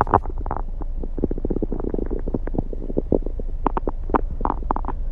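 A man's upset stomach growling: a fast, irregular run of gurgles and little pops, with a longer low gurgle about a second in.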